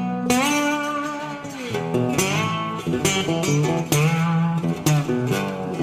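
Background guitar music: plucked guitar notes and chords, some notes bent up and down in pitch.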